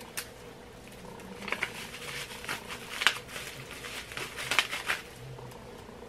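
Plastic wrapping on a small packet crinkling and rustling as it is handled, in short irregular bursts.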